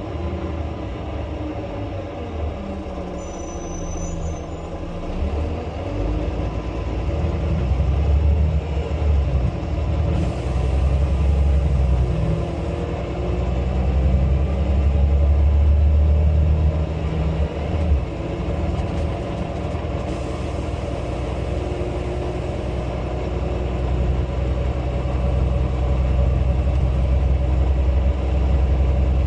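Volvo B9 bus engine and drivetrain running on the move, a low rumble that swells after a few seconds, dips briefly in the middle, then runs steadily, with pitched whines gliding up and down over it.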